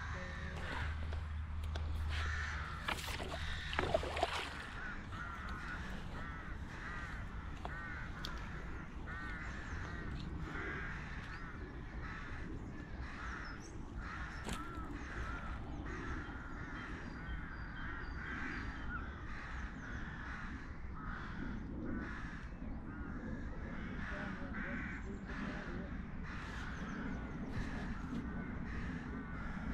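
Crows cawing over and over, many short calls in quick succession. A few sharp knocks about three to four seconds in.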